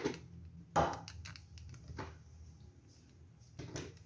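Handling knocks from a plastic stand mixer as its whisk head is set over the bowl: one sharp knock about a second in and a few softer knocks near the end, with a faint low hum throughout.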